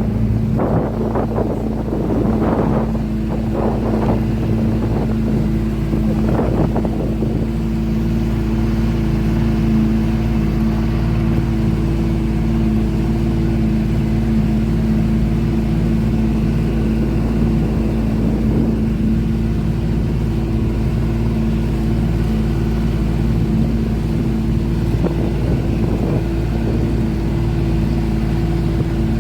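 Motorboat engine running at a steady pitch, with a few brief irregular sounds over it in the first seven seconds.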